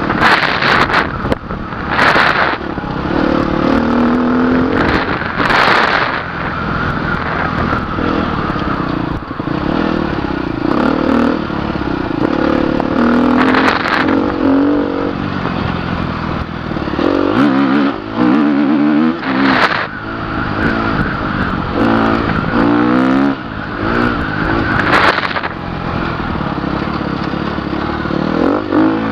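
Dirt bike engine running on a gravel road, its pitch rising and falling as the throttle opens and closes. Short loud rushes of wind noise hit the microphone every few seconds.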